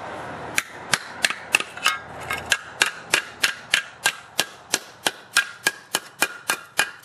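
Wooden-handled ball-peen hammer tapping the inside of a dented Honda GCV160 metal valve cover to knock the dents out, a steady run of sharp metallic blows about three a second, each with a brief ring, starting about half a second in. The dents had pressed on the valve gear and held the valves open, leaving the engine with no compression.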